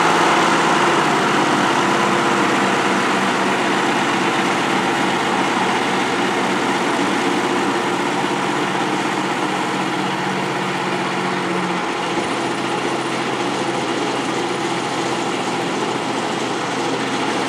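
Narrow-gauge diesel locomotive's engine running steadily as it moves slowly away with its coaches, the sound fading gently with distance. A low hum in the engine note drops out about twelve seconds in.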